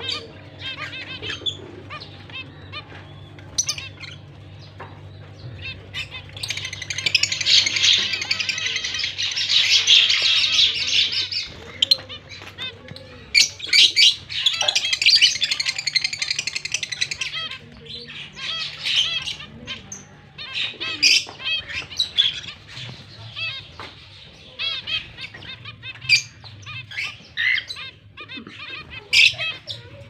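Lovebirds chattering and chirping in sharp, high calls, with two long spells of fast, loud chattering, one about a quarter of the way in and another near the middle.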